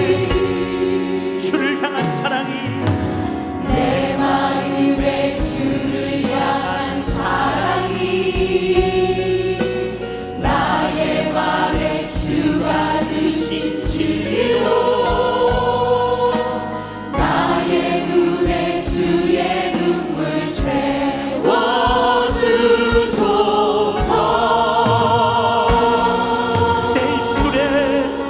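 Choir singing a Christian praise song in Korean, with band accompaniment and a steady drum beat.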